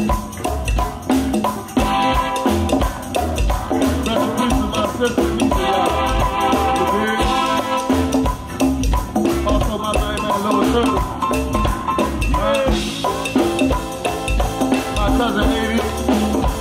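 A live band playing a groove: a drum kit and hand percussion over a strong bass line, with sustained pitched instrument lines on top.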